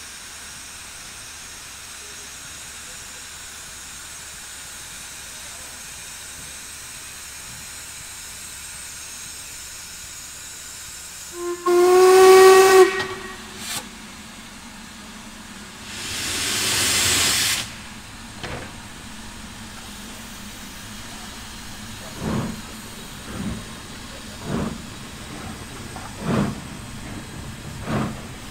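LMS Black Five steam locomotives in steam: a steady hiss of escaping steam, then a short whistle blast a little before halfway. A few seconds later comes a loud rush of steam. In the last third, slow exhaust chuffs a little over a second apart follow as a locomotive starts to pull away.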